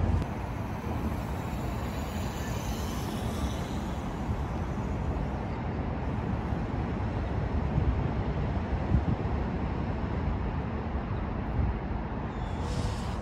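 Steady low outdoor rumble of distant road traffic, with no distinct nearby event.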